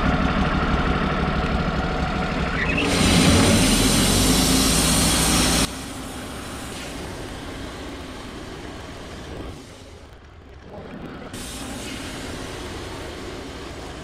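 Wood-Mizer LT28 portable bandsaw mill running, its engine driving the band blade through a large white pine log. It is loud at first and louder still from about three seconds in, then drops sharply in level near six seconds and carries on more quietly.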